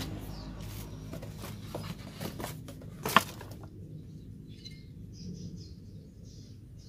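Handling noise from an aluminium motorcycle cylinder block and its cardboard box being picked up and turned over: scattered light clicks and knocks, with one sharp click about three seconds in. A low steady hum runs underneath for the first half.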